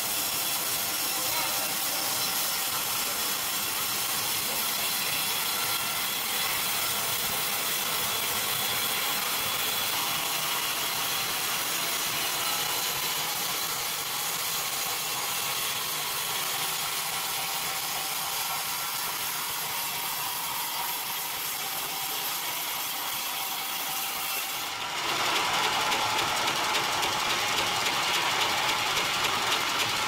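Sawmill circular saw blade running and ripping through a plank, a steady whine over dense mechanical noise. About 25 s in the sound turns abruptly louder and fuller.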